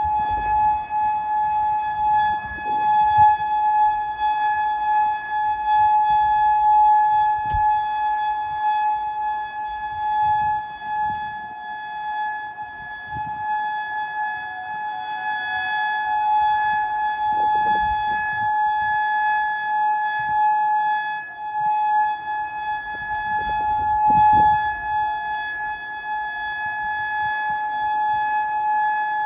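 Federal Signal Modulator electronic outdoor warning siren sounding one steady, unwavering tone: the alert signal of a siren test.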